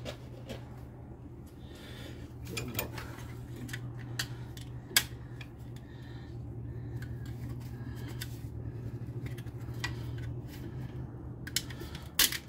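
Metal hand tools clicking and clinking against the alternator and its mounting hardware in a car engine bay, in scattered single knocks, the loudest about five seconds in. A steady low hum runs underneath.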